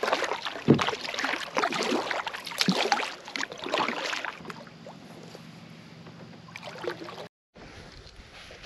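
Kayak being paddled: irregular splashing and knocking of paddle and water for the first four seconds or so, then quieter water with a faint steady low hum.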